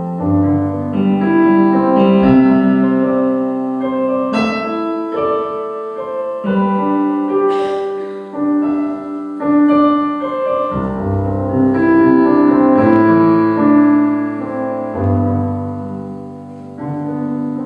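Piano playing an instrumental passage: struck chords with a melody over them, each chord ringing on and the harmony changing every second or two.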